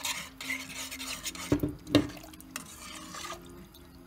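A spoon stirring roasted tomatoes, onion and pepper in water in a stainless steel pot. About a second and a half and two seconds in, the spoon knocks twice against the pot.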